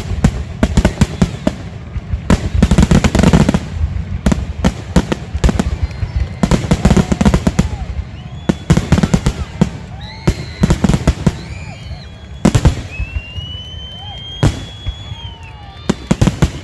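Fireworks display: rapid, loud bangs and crackles, dense for the first half and thinning to scattered single bangs. A long high whistling tone comes about thirteen seconds in.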